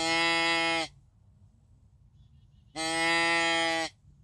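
Hand-blown adjustable deer call set to a fawn distress bleat: two calls, each about a second long and steady in pitch, the second a little under three seconds after the first. It imitates a hurt or distressed fawn, used to bring in does and curious bucks.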